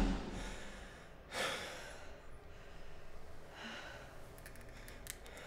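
A person's breathing in a quiet room: a sigh a little over a second in and a softer breath a couple of seconds later, with a few faint ticks near the end.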